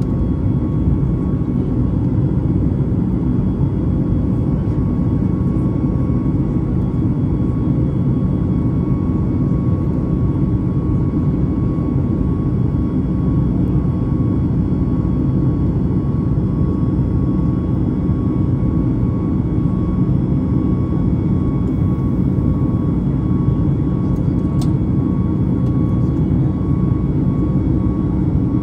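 Steady cabin roar of a Boeing 737 MAX 8-200 climbing after takeoff, heard from a window seat beside the engine: its CFM LEAP-1B turbofans running at climb power under the rush of air, with a thin steady whine above the low rumble.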